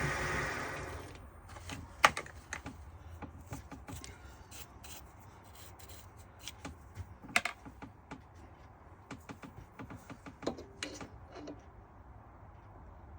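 A motor running steadily winds down about a second in. Then come irregular light clicks and taps of small tools and metal parts being handled on a workbench, with a sharper knock about two seconds in.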